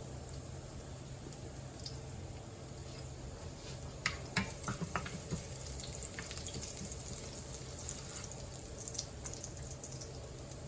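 Ginger frying in oil in a pan, a steady faint sizzle over a low hum, with a few light clicks about four to five seconds in.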